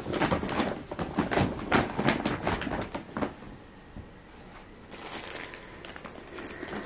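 A bag rustling and crinkling as items are packed back into it: a quick run of short crackles for the first three seconds or so, then lighter crackles again about five seconds in and near the end.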